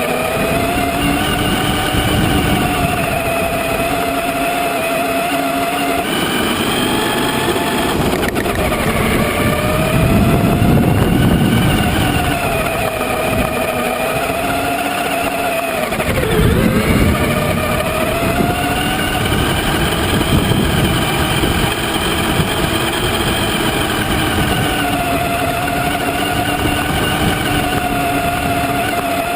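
Traxxas Summit RC truck's electric motor and gear drivetrain whining, the pitch rising and falling as the throttle and speed change, over the rumble of the tyres on rough ground.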